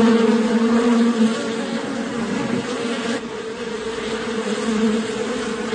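Bee buzzing: a continuous, steady low hum.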